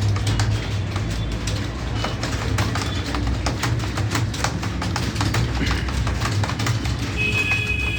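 Computer keyboard typing: rapid, irregular key clicks over a steady low hum, with a few thin high tones near the end.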